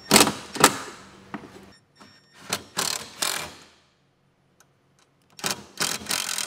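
Cordless driver run in three short bursts, driving the license plate frame's mounting screws into the rear of the UTV.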